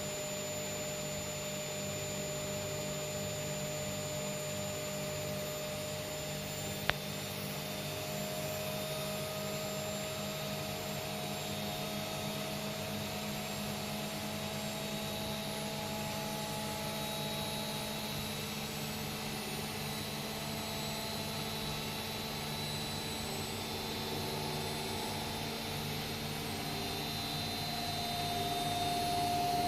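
Washing machine running: a steady motor hum and whine with a regular pulsing underneath, and one sharp click about seven seconds in. Near the end the whine steps up in pitch and grows louder.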